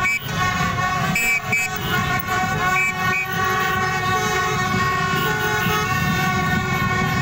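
Many horns blaring together in a street packed with motorbikes: several steady held horn tones run on without a break, with short high beeps in pairs during the first three seconds, over a low rumble of motorbike engines.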